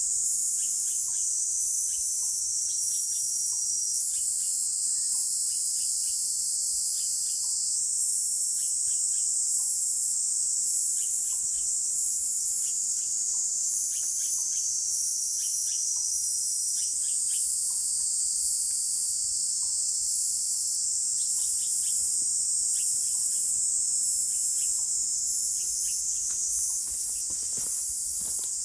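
Insects chirping in a dense chorus: a continuous very high-pitched trill with a regular pulsing, and fainter short chirps repeating lower down.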